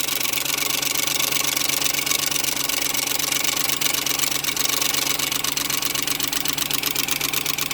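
Ford 5.4 Triton two-valve V8 idling with its valve cover off, with a fast, steady ticking over the engine: the sign of a loose timing chain guide letting the chain slap.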